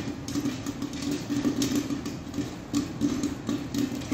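Electric popcorn machine running: its motorised stirrer, a small brushed DC gear motor, hums steadily under load. Scattered short pops and crackles come from the heated kettle.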